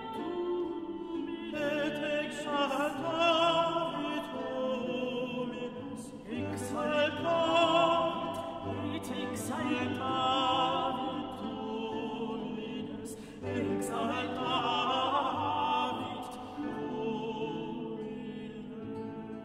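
Classical background music: an operatic voice singing with a wavering vibrato over an orchestral accompaniment.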